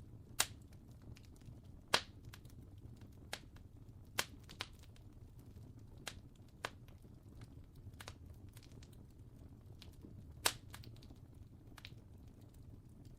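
Fire crackling: irregular sharp pops and snaps over a faint low steady rush, with the loudest pops about half a second, two seconds and ten and a half seconds in.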